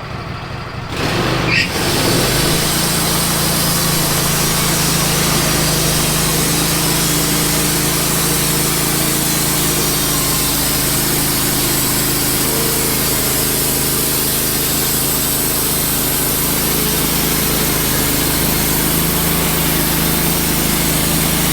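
Wood-Mizer LT15 band sawmill cutting boards from an ash log: the mill's motor picks up speed over the first couple of seconds, then runs steadily under load as the band blade saws through the log.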